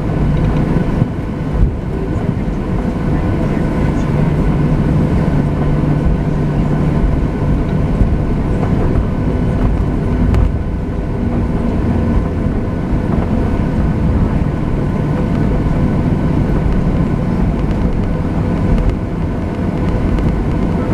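Boeing 737-700's CFM56 jet engines running, heard from inside the cabin over the wing: a steady, loud rumble with several held whine tones that neither rise nor fall.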